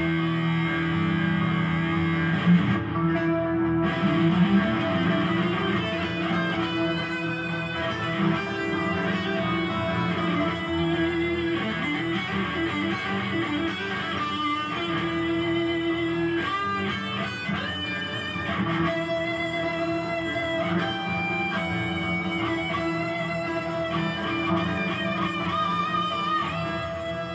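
Gibson Les Paul Studio electric guitar playing a blues-rock lead line of quick single notes with bends and slides, over long held lower notes.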